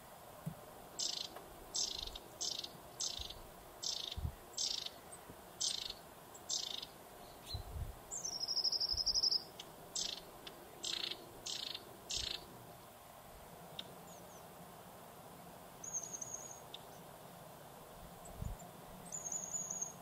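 Tree pipit singing: a run of short, sharp high notes at a little over one a second, broken by a buzzing trill about eight seconds in, then a few more notes and two short trills near the end.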